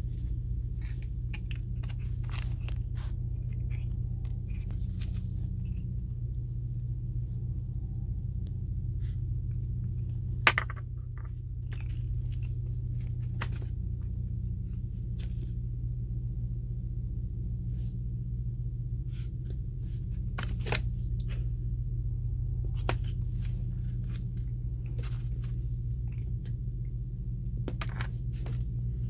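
A small puppy chewing and gnawing, heard as scattered crunchy clicks with one sharper click about a third of the way in, over a steady low drone.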